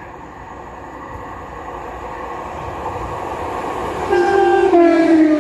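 Northern Class 156 diesel multiple unit approaching, its running noise building steadily, then sounding its two-tone horn about four seconds in: a higher note followed by a lower one.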